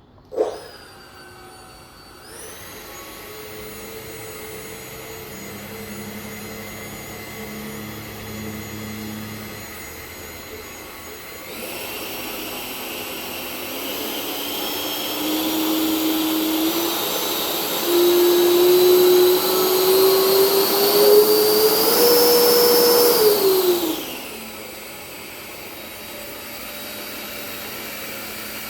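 Remote-control F-16 model jet being run up: a steady whine that climbs in pitch in steps and gets louder, holds near full power, then drops quickly back to a low idle about two-thirds of the way through. A short knock comes right at the start.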